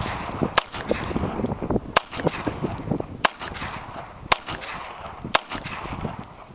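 A .22 LR Beretta Neos pistol fired in slow single shots, about five cracks roughly a second apart.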